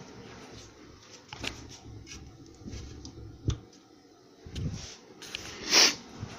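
Handling noise from a handheld camera being panned: scattered light clicks and brief rustles, with one louder rustle near the end, over a faint steady electrical hum.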